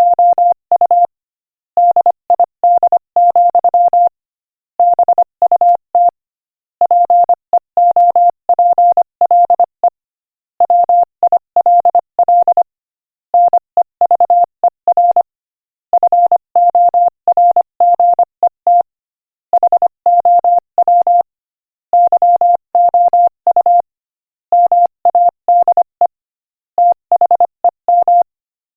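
Morse code sent at 25 words per minute as a single steady beep, keyed in quick dots and dashes, with short pauses between words, spelling out a quotation.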